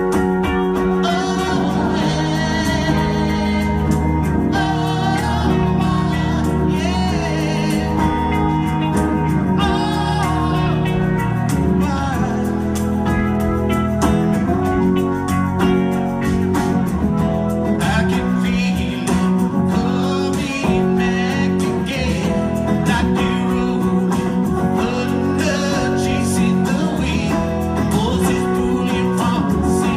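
A man singing with his own strummed acoustic guitar in a live performance, the voice in long phrases with vibrato over steady chords.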